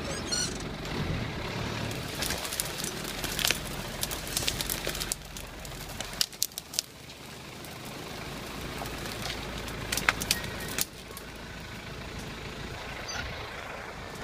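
Off-road 4x4's engine running at low speed over a steady low hum. Scattered knocks and clicks from the vehicle, the loudest about ten seconds in.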